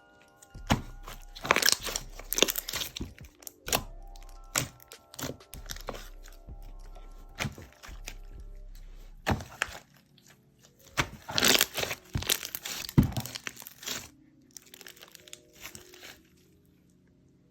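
Slime being squeezed and pressed, giving sharp crackling snaps and pops that come thickest at about two seconds in and again at about eleven to thirteen seconds, over soft background music.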